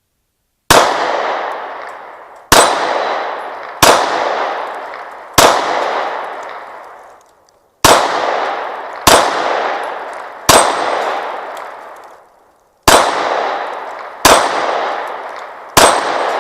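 Ten 9mm shots from a Glock 26 pistol fired at steel targets, spaced irregularly about one and a half to two seconds apart. Each sharp crack trails into a long ringing decay.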